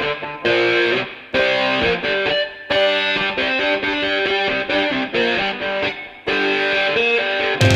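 Background rock music: a distorted electric guitar riff played in short phrases with brief breaks between them.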